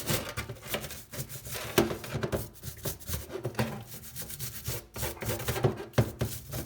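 A grimy bicycle V-brake arm being scrubbed clean by hand: irregular rubbing strokes with small knocks of the part being handled.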